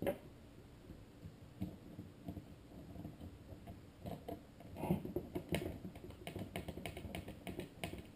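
Light clicks and taps of small plastic cluster parts being handled while a single screw is driven in with a screwdriver. Scattered at first, then a quick run of ticking clicks from about five seconds in.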